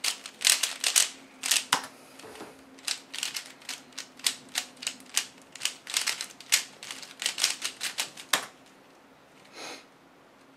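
A 3x3 speedcube being turned fast by hand: quick runs of plastic clicks and clacks as the layers snap round, stopping about two seconds before the end. A short soft rustle follows near the end.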